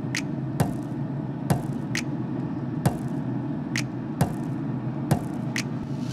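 Pellet grill running with a steady low hum, broken by short sharp clicks at irregular half-second to one-second intervals.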